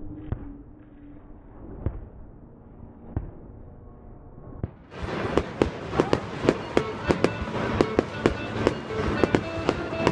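Fireworks going off: a few scattered bangs, then about five seconds in a rapid barrage of sharp bangs, about three a second.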